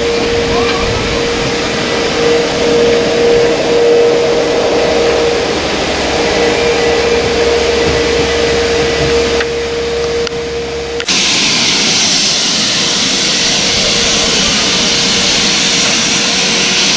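Running noise of a moving train heard from an open carriage window: a steady rumble with a low hum and a held tone. About two-thirds of the way through it switches abruptly to a steam locomotive standing at a platform, letting off a steady hiss of steam.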